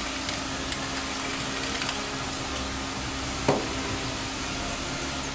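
Mushrooms sizzling steadily in a sauté pan on an induction cooktop, over a steady hum, with a few light clicks and one knock about three and a half seconds in.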